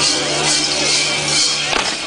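Large bells worn by costumed Perchten jangling with a rhythmic shake, about two to three clangs a second, over a steady low hum.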